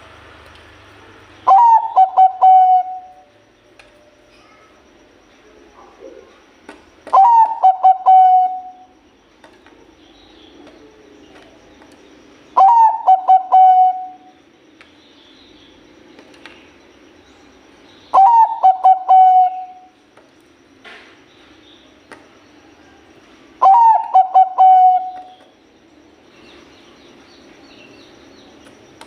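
Zebra dove (perkutut Bangkok) cooing: five loud phrases about five and a half seconds apart, each a quick run of short notes ending in a longer held coo.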